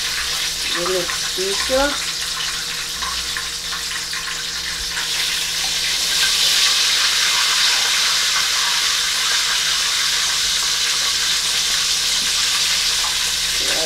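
Buttermilk-battered chicken deep-frying in hot oil in a pot on the stove: a steady sizzling hiss that grows a little louder about five seconds in.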